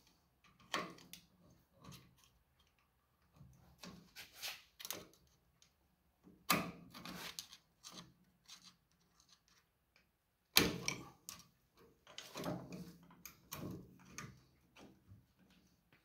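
Steel snap ring being forced into its groove on a tractor PTO bearing quill by thumb and screwdriver: irregular metal clicks, scrapes and small rattles, the loudest about six and a half and ten and a half seconds in.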